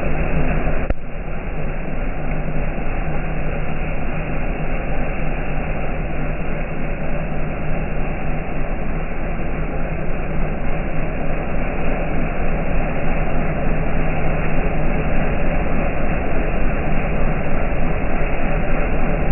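Heavy rain pouring down in a steady, dense hiss, with a single brief click about a second in.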